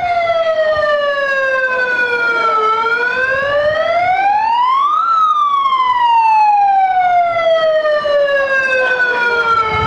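A siren wailing: a single tone with overtones sweeps slowly down in pitch, climbs to a peak about five seconds in, then falls slowly again before starting to rise near the end.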